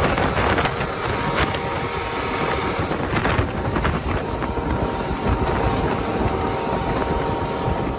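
Strong wind buffeting the microphone aboard a small fishing boat in rough seas, over water washing against the hull with a few sharper slaps and a faint steady hum.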